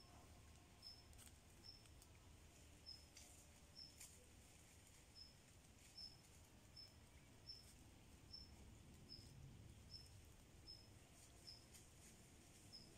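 Faint call of a small animal: a short, high chirp repeated a little more than once a second, over quiet outdoor background.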